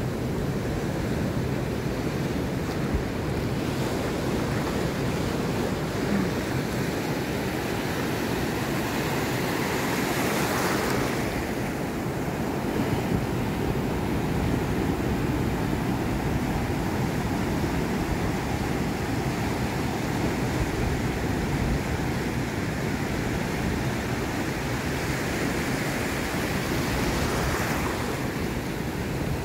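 Ocean surf: waves breaking and foam washing through the shallows in a steady rush, swelling louder twice, about a third of the way in and again near the end.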